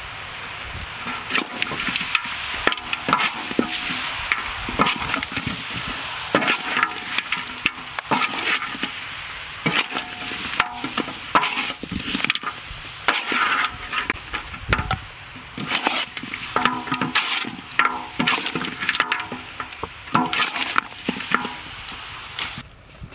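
Goat meat and herbs sizzling in a large metal wok while a metal spatula stirs them, scraping and clanking against the pan again and again. The sizzling cuts off near the end.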